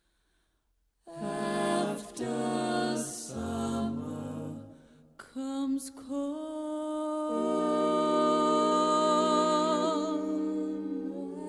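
Music: sustained, slightly wavering vocal-like chords, starting about a second in after near silence.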